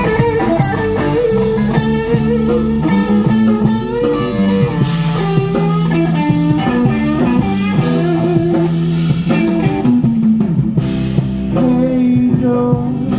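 Blues-rock music led by guitar, played loud through a PA system, with sustained guitar notes and melodic runs.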